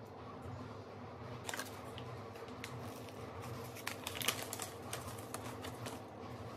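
Paper seed packet being torn open and handled: a run of crisp crinkles and small clicks, densest about four seconds in, over a steady low hum.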